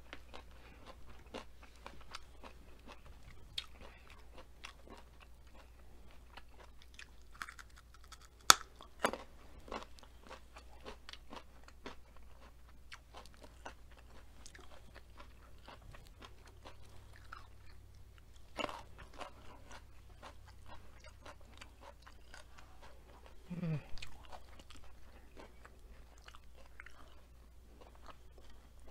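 Close-up chewing and crunching of crunchy food, a raw baby carrot and breaded asparagus, in a steady run of small crunches. Sharp loud crunches come a third of the way in and again past halfway.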